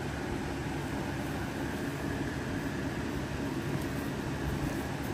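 Steady background hum and hiss of room noise with no distinct event, the kind of continuous drone a fan or air conditioning unit leaves under a recording.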